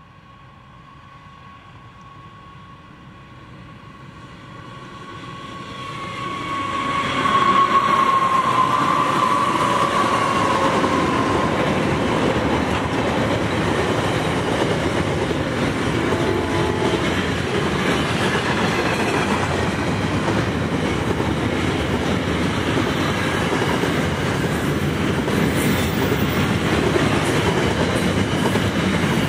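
NR class diesel-electric freight locomotives approach with an engine hum and a steady high tone that grows louder. It peaks about seven seconds in, the tone dropping slightly in pitch as they pass. A long train of intermodal container wagons then rolls past with steady wheel clatter on the rails.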